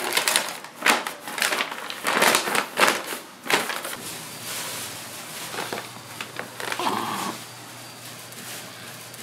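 Kitchen work noises: a run of sharp, irregular crackling and crunching clatters in the first few seconds, then a steady low hum under a soft hiss.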